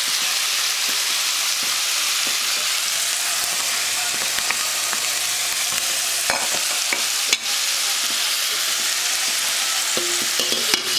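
Food sizzling steadily in a hot frying pan, with a few sharp clicks partway through and near the end.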